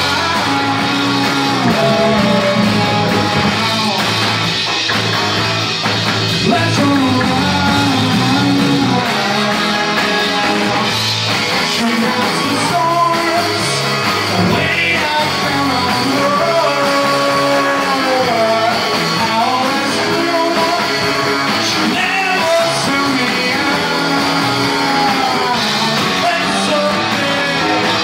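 Garage rock band playing live: electric guitars and drums, with a man singing.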